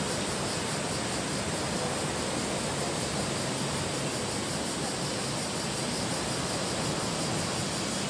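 Storm-driven sea surf breaking at the mouth of a sea cave and washing in over the rocky floor, a steady rushing noise.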